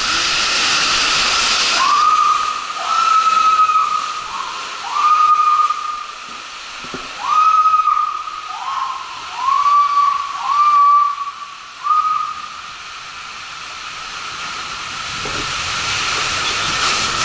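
Water rushing and hissing down an enclosed water slide under a rider's inflatable tube. Through the middle comes a run of about eight short high squeals, each rising quickly and then holding.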